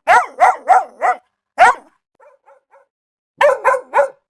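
A small dog barking in quick high-pitched runs, about three or four barks a second. There is a short lull with a few faint yips in the middle, then another run of barks near the end.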